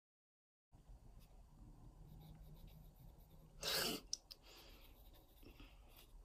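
Dead silence for a moment, then a pen tip scratching and ticking faintly on watercolour paper while drawing, with one short, loud rustling burst about three and a half seconds in.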